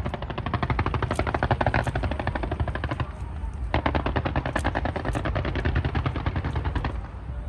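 Fireworks going off in a rapid crackling string of bangs, many a second, like machine-gun fire. The rattle thins out briefly about three seconds in, then restarts with a loud burst.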